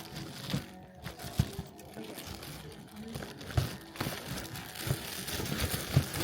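Crinkling of plastic packaging and light knocks of merchandise being handled, over faint background music.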